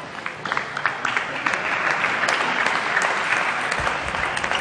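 Applause and crowd noise in a sports hall, swelling about half a second in, with the sharp clicks of a table tennis ball striking bats and table during a rally.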